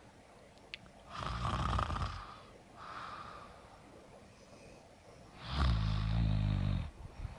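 A woman snoring with her mouth open: a loud snore about a second in, a softer breathy one near three seconds, then a louder buzzing, rattling snore lasting about a second and a half near the end.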